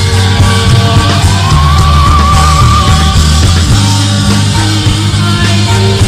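Recorded rock song playing: a full band with drums, and a high wavering held note that comes in about a second and a half in and fades about three seconds in.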